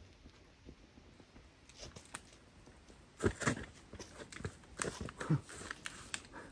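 Footsteps on a hiking trail: a few irregular scuffs and knocks, the loudest about three and five seconds in.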